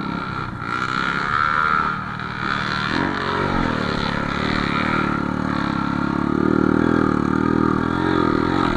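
Off-road motorcycle engine running on a dirt trail, its pitch rising and falling as the throttle is worked, with a climb about three seconds in and another around six to seven seconds.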